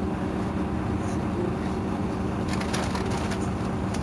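Irisbus Citelis Line city bus's Euro 5 diesel engine idling steadily at a stop. About two-thirds of the way in, an irregular crackling noise joins it.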